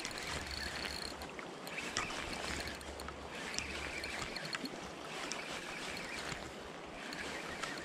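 River water flowing steadily, with scattered small clicks over it.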